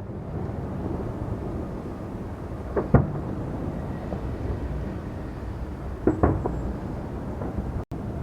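Fireworks bursting: one sharp bang about three seconds in and two more close together about six seconds in, over a steady low rumble of further bursts.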